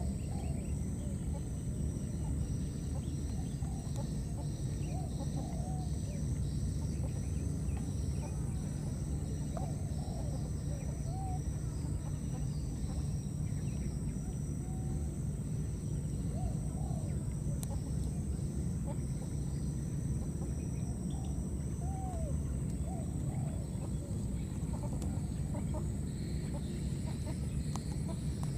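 Outdoor field ambience: a steady low rumble, with scattered short clucking animal calls every second or two and a steady thin high whine over the top.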